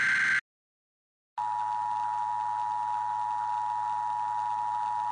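The tail of an Emergency Alert System digital data burst, a harsh warbling screech, cuts off within the first half-second. After about a second of silence, the EAS two-tone attention signal sounds, a steady dual-pitched tone held to the end.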